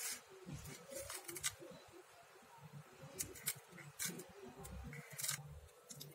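Knife cutting set halwa in a stainless steel plate: scattered light clicks and scrapes as the blade touches the steel, with muffled handling noise.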